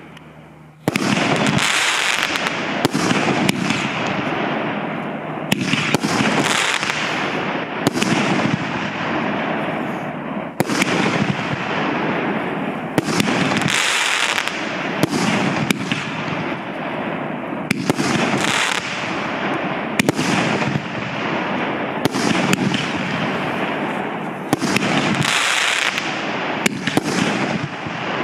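Piromax Monster 25-shot, 50 mm consumer firework battery (cake) firing shot after shot: sharp bangs every second or two over a continuous rushing noise, starting about a second in.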